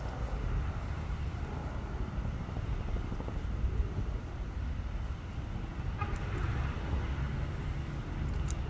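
Steady low outdoor rumble, with a few faint clicks about six seconds in and near the end.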